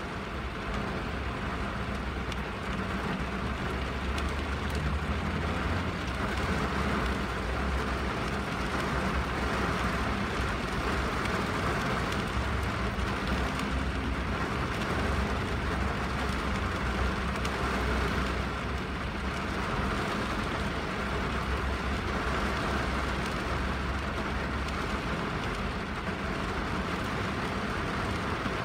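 Steady rain on a window and roof, an even hiss that swells and eases slowly, over a constant low rumble.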